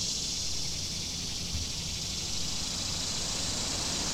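Steady, high-pitched chorus of insects such as crickets or cicadas, with a low rumble underneath.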